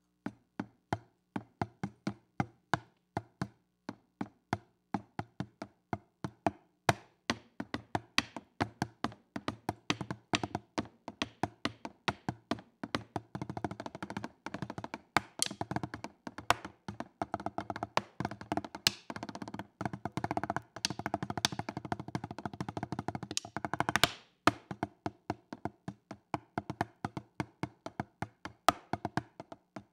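Drumsticks striking a table of taped-up practice pads laid out like marching tenor drums (quads), playing a drumline beat: spaced single strokes at first, thickening into fast, dense rolls and runs through the middle, then back to spaced, accented strokes near the end.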